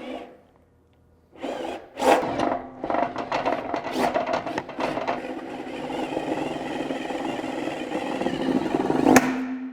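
Drill-driven BWS-38-MF-DA wire stripping machine pulling a thick 350 MCM copper cable through while its blade slits the insulation. It starts with irregular clicks and knocks, settles into a steady mechanical run with a low hum, and ends with a loud click near the end.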